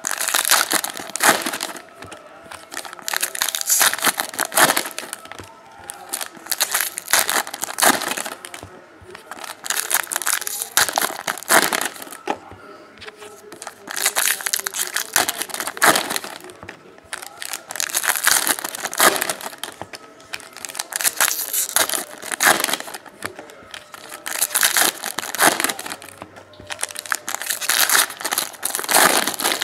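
Foil wrappers of 2012 Panini Prizm football card packs being torn open and crinkled by hand, one pack after another, in crackling bursts every second or two.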